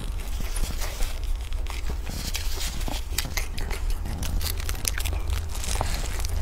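Close-miked crinkling of a clear plastic bag as a green-onion flatbread wrapped in it is handled, with chewing and a bite into the bread near the end. A steady low hum runs underneath.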